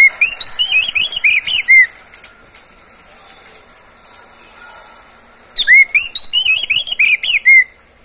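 Oriental magpie-robin (kacer) singing: two loud runs of rapid, sweeping whistled notes of about two seconds each, the second starting about five and a half seconds in and nearly repeating the first.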